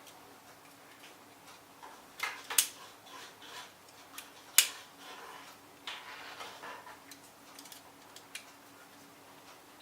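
Small clicks and taps of a tiny screwdriver and screw being worked into a plastic Swiss Army knife scale, with two sharp clicks standing out, about two seconds apart.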